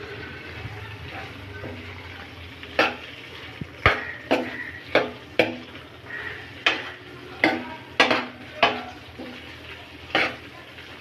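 A cooking spoon stirring chicken pieces in a pan, knocking and scraping against the pan about ten times at an uneven pace, over a steady sizzle of frying. The chicken is being fried until the raw smell of the spices is gone.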